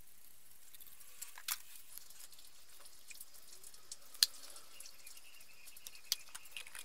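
Light handling clicks and taps of a plastic mixing cup and a paper paint strainer on a spray gun's gravity cup, over a faint hiss, with one sharp click about four seconds in.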